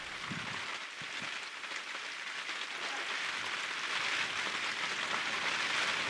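Steady hiss of heavy rain falling on muddy standing water, slowly growing louder.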